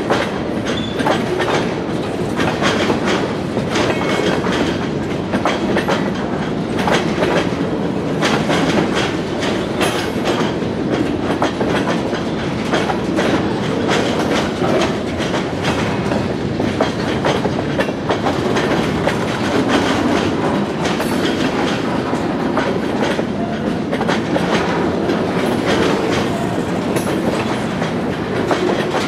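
Freight train cars rolling past on the rails, the wheels clicking steadily over the rail joints.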